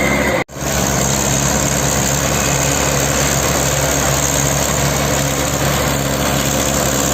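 Mahindra Arjun Ultra 555 DI tractor's diesel engine running steadily. The sound cuts out briefly about half a second in, then the engine resumes.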